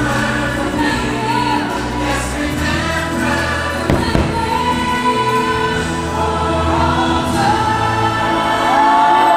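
Choir singing holiday music with accompaniment, with a single firework bang about four seconds in and a long held sung note near the end.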